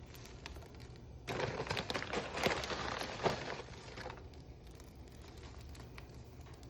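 Rustling, crinkling noise for about three seconds, starting about a second in, over a faint steady background hum.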